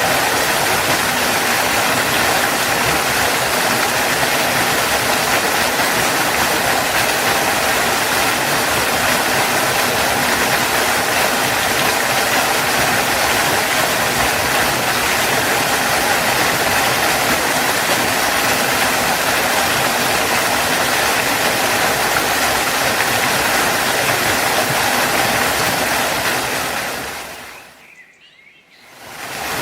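Steady rushing of a waterfall, a dense even roar of falling water. About 27 seconds in it fades down to a brief dip, then rises again at the end.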